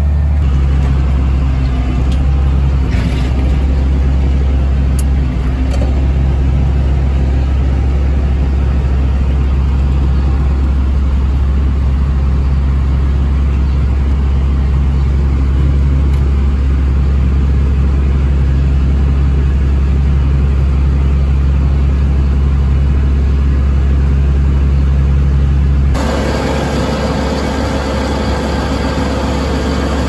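Farm tractor's diesel engine running steadily at low revs, driving a loaded TMR mixer wagon as it unloads feed out of its side door, heard from inside the tractor cab. The deep drone changes near the end: the lowest hum drops away and higher mechanical tones come through.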